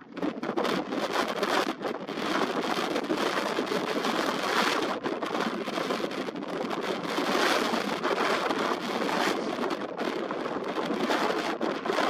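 Wind buffeting the built-in microphone of a Nikon Coolpix P1000 camera: a rough, rushing noise that rises and falls in uneven gusts.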